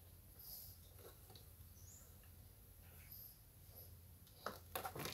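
Near silence with faint handling noises, then a few sharp clicks near the end, as the fuel hose and stop-switch wire are fitted to a small sprayer engine.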